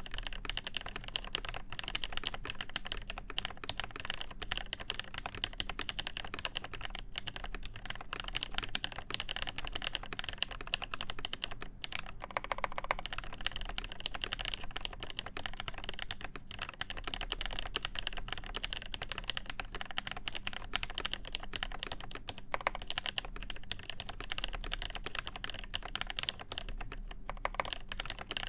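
Continuous typing on a Cherry G80-1813 (Dolch PAC) mechanical keyboard, mounted PCB-only without a plate, with Nolive switches lubed with Krytox 205g0 and original Cherry Dolch keycaps: a steady, dense stream of key clacks.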